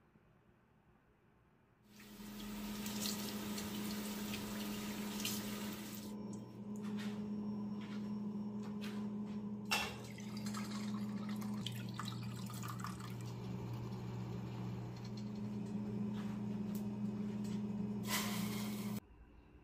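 Kitchen tap running into a sink, turned on about two seconds in and shut off abruptly near the end, with a steady rush, a low pipe hum and a few clinks and splashes.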